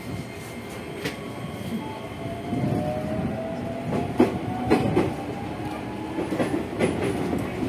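Toyo Denki IGBT VVVF inverter of a JR 205-series motor car whining as the train accelerates: a thin tone climbs slowly in pitch from about two and a half seconds in, over the running rumble. The wheels give occasional knocks and clicks at the rail joints.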